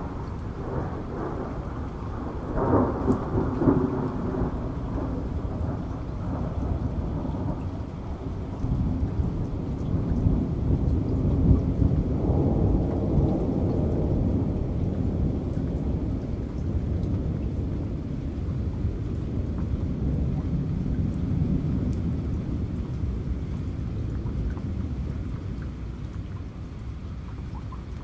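RC crawler truck's electric motor and gearbox running with the wheels spinning off the ground, a low whir that swells with the throttle around three seconds in and again from about ten to fourteen seconds.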